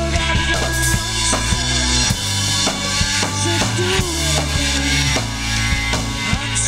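Rock band playing live: drum kit with kick and snare keeping a steady beat under electric guitars and synth keyboard.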